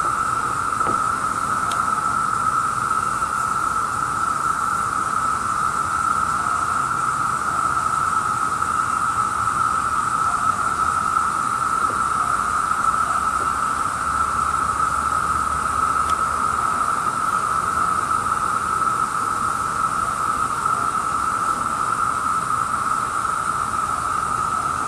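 Chorus of Brood II periodical cicadas (Magicicada): a loud, steady, unbroken drone that holds one even pitch.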